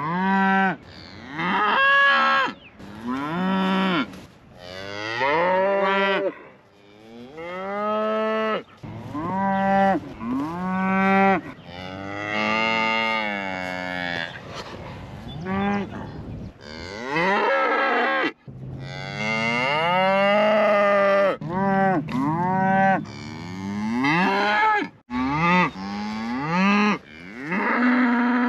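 Highland cattle mooing one after another, many long moos that rise and fall in pitch, often overlapping. The herd is calling because a calf is out.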